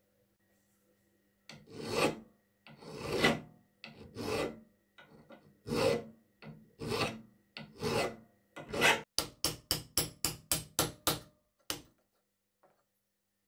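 Flat hand file scraping in strokes: about seven slow, long strokes roughly one a second, then about ten quicker, shorter strokes near the end.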